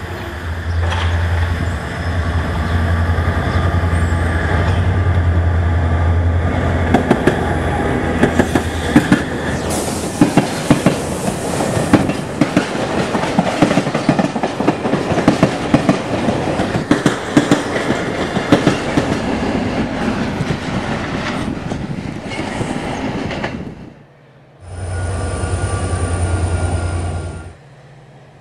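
Vossloh Euro 4000 diesel-electric freight locomotive passing with a low engine drone, followed by its train of timber wagons clattering over the rail joints in a long run of clicks. After a break near the end, a few seconds of another locomotive running with a low drone and steady higher tones.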